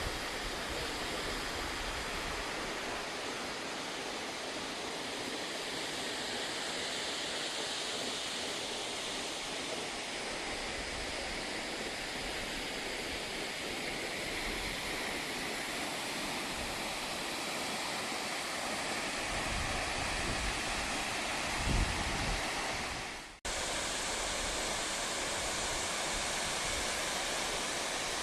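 Large waterfall, its falling water rushing steadily. Low wind rumble hits the microphone a few times, and about four-fifths of the way through the sound drops out suddenly for an instant before the rush resumes.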